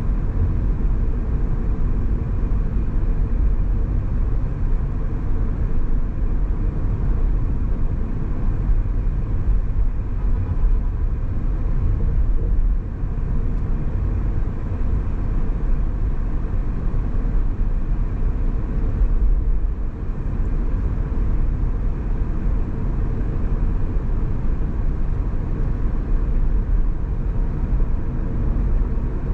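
A car driving: a steady low rumble of road and engine noise, dipping briefly about twelve and nineteen seconds in.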